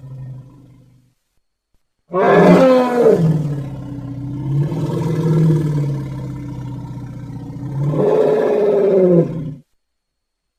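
Elephant giving one long, loud call that starts about two seconds in. Its pitch drops at first, holds, then lifts again near the end before it cuts off suddenly. The tail of an earlier call fades out in the first second.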